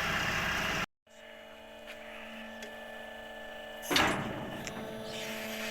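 Machinery running with a loud, steady noise that cuts off abruptly about a second in. A faint steady hum follows, with a few small ticks and one brief clattering burst about four seconds in.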